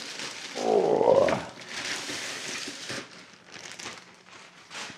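Thin plastic shopping bag rustling and crinkling as it is pulled off a large flat cardboard package. About a second in there is a short, loud rising groan of friction as the package slides out, followed by a couple of seconds of rustling that then tails off into a few softer crinkles.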